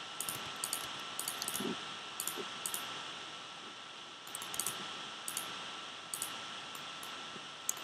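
Light, scattered clicks of a computer mouse and keyboard, about a dozen spread unevenly through, over a steady background hiss with a faint thin high tone.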